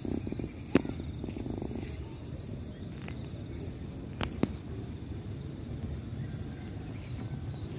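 Outdoor ambience by a flooded river: a steady low rumble with a faint high hiss, broken by two sharp clicks, one about a second in and one a little past four seconds.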